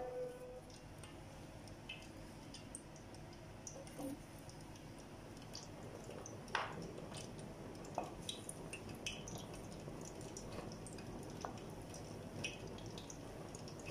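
Rice kibbeh deep-frying in hot oil: a soft, steady sizzle with scattered small pops and crackles.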